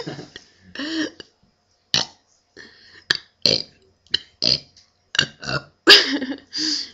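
A girl burping out letters of the alphabet: a string of separate belches, one after another, some voiced with a pitch that bends up and down, the longest near the end.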